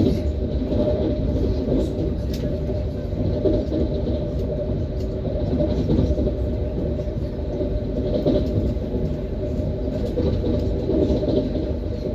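ES1P Lastochka electric train running along the track: a steady rumble of wheels on rail, with scattered short knocks and clicks from the wheels.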